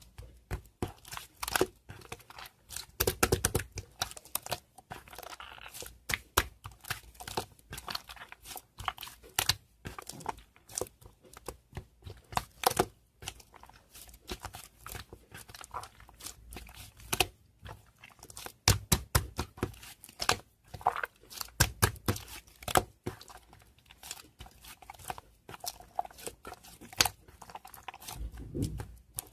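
Irregular crinkling and crackling handling noises, like paper or plastic being crumpled and torn, with a few louder low thumps.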